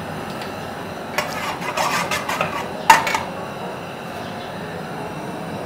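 Metal cookware and utensils clattering: a run of clinks and knocks for about two seconds, ending in one sharp, loud clank, over a steady background hiss.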